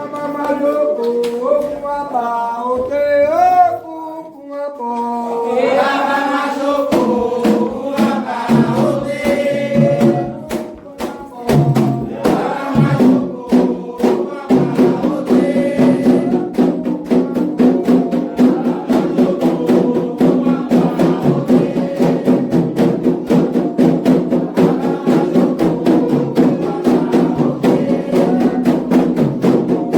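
Candomblé ritual music: a solo singer's wavering call, then about seven seconds in drums and percussion come in with a fast, dense beat under the sung response of many voices.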